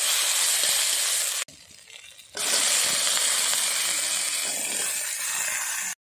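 Leaves and vegetable pieces sizzling hard in hot mustard oil in an iron kadai, with a steel spatula scraping the pan. The hiss breaks off suddenly about a second and a half in for under a second, then resumes.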